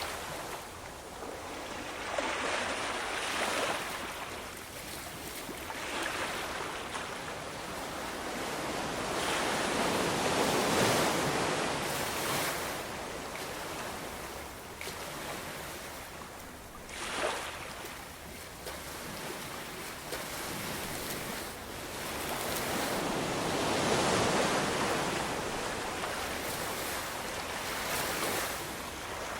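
Ocean waves breaking and washing on shore, a steady rushing surf that swells and recedes every few seconds, with a sharper crash about seventeen seconds in.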